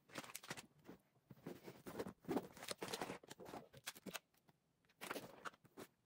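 Clothes and small items rustling and knocking as they are packed into a backpack: irregular handling noises with a few small clicks.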